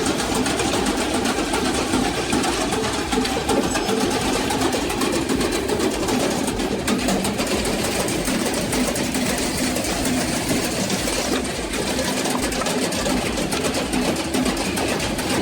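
Machinery running steadily: an engine-driven hum that wavers slightly in pitch, with a fine continuous rattle over it.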